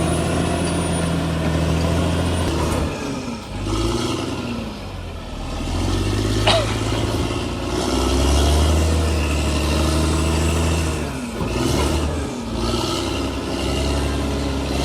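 Bulldozer's diesel engine working under load, its revs dropping and climbing again several times. A brief high squeak falls in pitch about six and a half seconds in.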